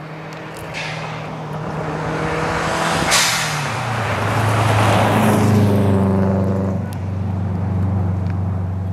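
Rally car at speed on a gravel stage, approaching and passing close by. The engine note drops in pitch about four seconds in, just after a short sharp crack, and the tyre and flung-gravel noise is loudest around five to six seconds in before easing as the car goes away.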